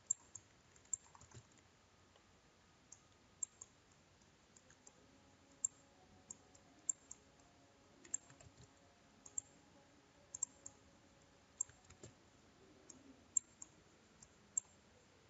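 Faint, irregular clicks of a computer mouse, roughly one to two a second, over a quiet room.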